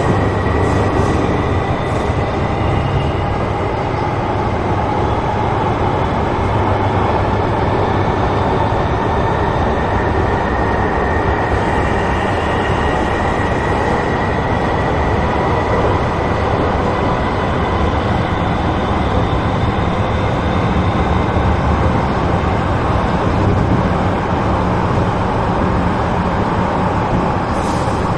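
Metro Cammell 'MLR' electric multiple unit running at speed, heard from inside the passenger car: a steady rumble of wheels and running gear, with a faint whine that drifts slowly up and down in pitch.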